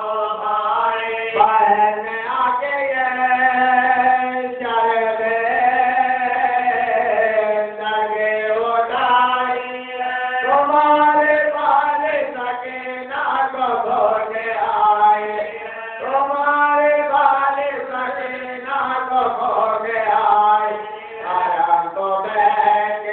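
A man chanting unaccompanied in long held notes that slide up and down, with short breaks between phrases.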